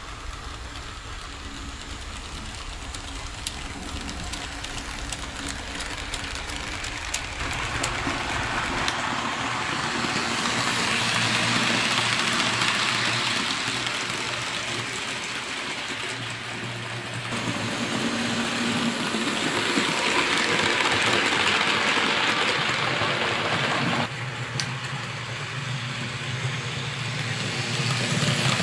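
HO-scale model train (Roco Renfe Class 307 diesel locomotive with tank wagons) running on the layout's track: a steady rolling rush and motor hum that swells twice as the train comes near, with a few sudden jumps in level.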